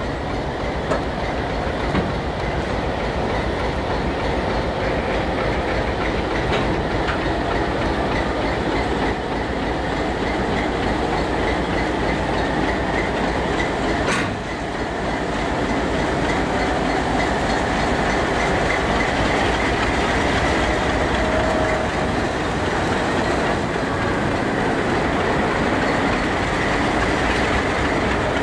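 Slow freight train rolling past: a heavy-load flatcar and then Delaware-Lackawanna diesel locomotives, wheels clicking over the rail joints. The sound grows slightly louder about halfway through as the locomotives reach the crossing.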